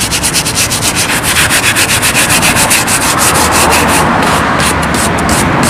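Plastic-bristle brush scrubbing a suede boot with cleaning gel in quick back-and-forth strokes, about six a second. About four seconds in, the strokes slow down.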